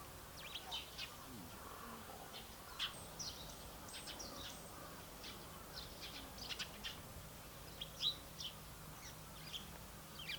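Birds chirping faintly: short, high chirps, singly and in quick clusters, scattered throughout over a faint low hum.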